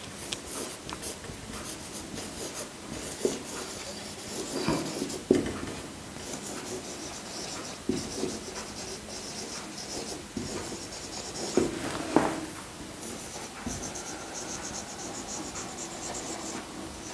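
Handwriting: a pen scratching out text in runs of short strokes, with a few light taps in between.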